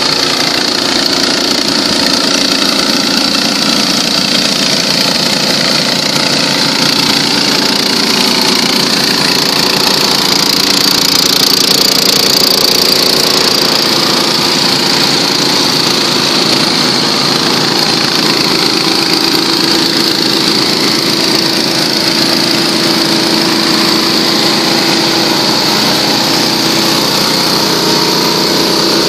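Several small petrol-engine water pumps, 3-inch and 4-inch trash-pump type, running together at a steady speed while pumping water out of a flooded boat hold.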